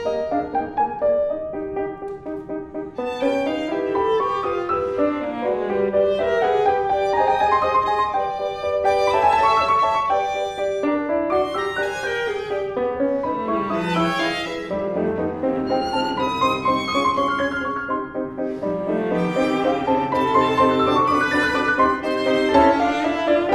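Piano quartet of violin, viola, cello and grand piano playing chamber music together, with sustained bowed string lines, some sliding in pitch, over piano chords.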